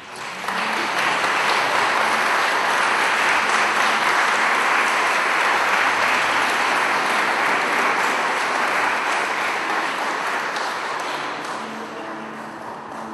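Wedding guests in a church applauding the newly married couple's kiss. The applause breaks out suddenly, holds steady, and tapers off near the end.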